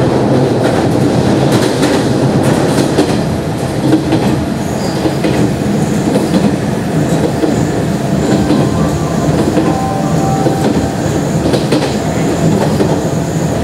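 Nishitetsu 5000 series electric train running at speed, heard from inside the car: a steady rumble of wheels on the rails, with scattered clicks from the rail joints.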